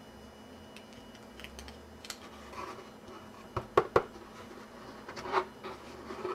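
Small screwdriver scratching and clicking on the tiny blade screw of a Grim Reaper Razorcut mechanical broadhead as the screw is undone, with a few sharp clicks a little past halfway.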